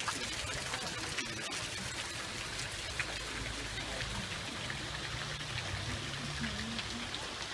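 Water running and splashing down a stepped stone garden cascade: a steady rush sprinkled with small splashes.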